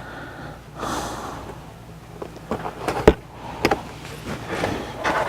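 Plastic interior trim panels and their clips being handled and worked into place: rustling and scraping with several sharp clicks and knocks, the loudest about three seconds in.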